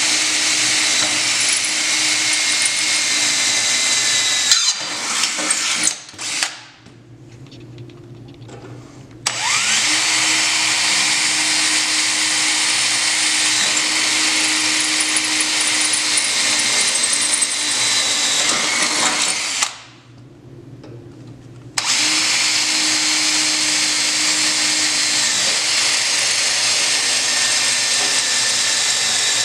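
Power drill running in three long steady spells, with two short pauses: boring rivet holes through a steel brace plate into a snowmobile's bulkhead.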